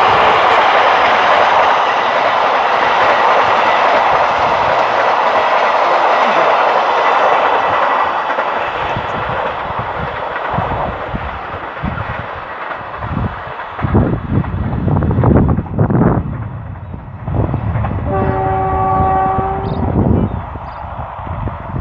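Passenger coaches of a diesel-hauled train rumbling and clattering past on the rails, loud at first, then fading as the train draws away. Low rumbling gusts follow, and near the end the train's horn sounds once, about a second and a half long, in a chord of several tones.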